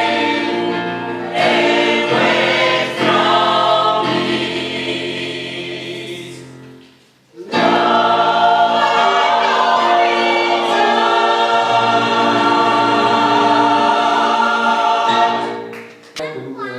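Gospel choir singing, first holding a chord that fades away about seven seconds in. After a short break a new loud phrase comes in and is held until it dies away just before the end.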